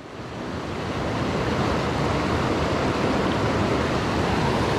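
Creek water rushing over rocks in a small cascade: a steady, even rush that fades in over the first second or so.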